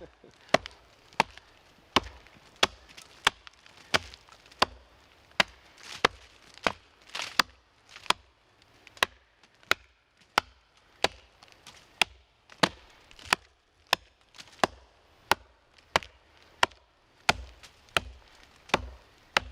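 Axe chopping into a log in a steady rhythm, about three strikes every two seconds, each a sharp knock into the wood.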